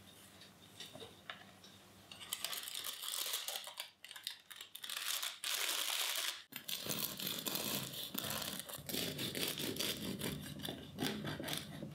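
Parchment paper crinkling and rustling as a baked loaf is lifted out of its tin. Then a bread knife saws through the loaf's crisp crust, crackling steadily.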